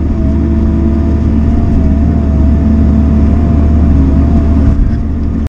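Bobcat E42 mini excavator's diesel engine running steadily under load, heard from inside the cab as the boom digs and dumps soil. A deep rumble sits under a higher whine that wavers slightly in pitch.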